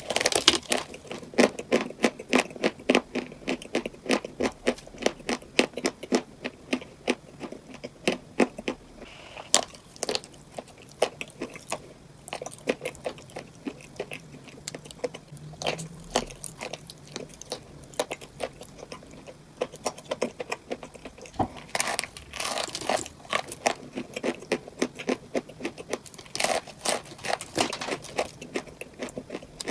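Close-up chewing of cupcakes filled with crunchy items: a fast, steady run of crisp crunches, with louder bursts of crunching about three quarters of the way through and again near the end.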